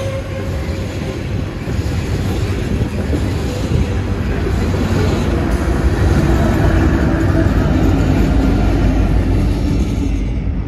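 A loaded coal train rolling by slowly as it drifts downhill: a steady rumble of loaded hopper cars' wheels on the rails. About six seconds in it grows louder as the rear pair of diesel locomotives passes, with a faint steady hum from them.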